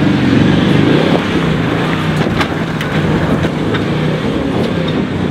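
A Toyota LandCruiser 76 Series V8 turbo-diesel working hard under load as it climbs a loose, rutted dirt hill, the engine note rising and falling. The tyres scrabble over the loose dirt, with a few sharp knocks along the way.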